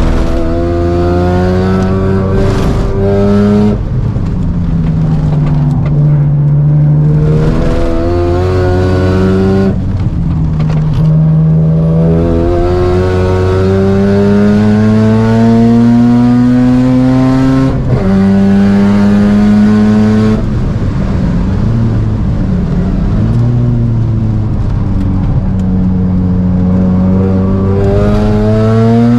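Mazda RX-7 FD3S's single-turbo 13B twin-rotor rotary engine under hard acceleration. Its pitch climbs steadily and drops back at each of several upshifts, then wavers as the driver eases off past the middle before it pulls and climbs again near the end.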